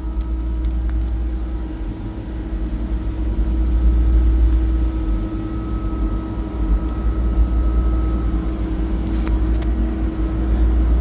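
Steady machinery drone of a running York YVAA air-cooled chiller: a strong low rumble with a steady hum over it, and a few faint ticks.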